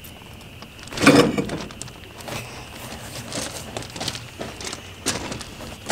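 A tractor's front wheel and tyre being slid off its hub and lifted away by hand: scraping and knocking, loudest in one burst about a second in, then scattered smaller scrapes and knocks.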